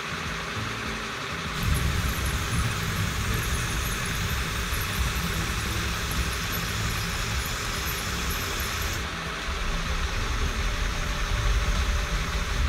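Electric motors of a Lego gantry crane running as the crane travels slowly along its track: a steady mechanical whir, with a louder low rumble setting in about a second and a half in.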